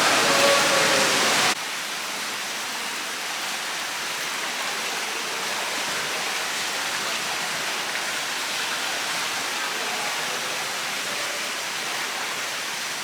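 Tukad Cepung waterfall: a steady rush of falling water. It is louder for the first second and a half, then drops suddenly to a quieter, even rush.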